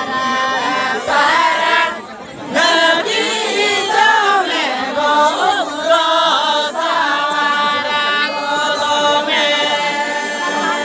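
A group of voices singing a Santali folk song together in chorus, the melody wavering and sliding, with a brief break about two seconds in.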